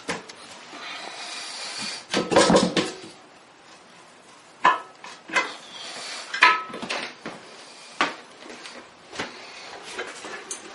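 Irregular knocks and clatter of hard objects being handled, loudest in a cluster about two seconds in, then single knocks about once a second.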